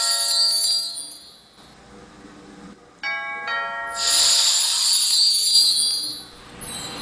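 Magical chime sound effect: a quick run of bell-like notes, each left ringing, followed by a bright sparkling shimmer. It is heard at the start and again about three seconds in.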